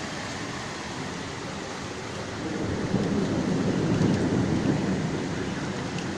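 Heavy rain pouring down in a windy downpour, a steady rush. A louder, deeper rush swells in about halfway through and eases off again.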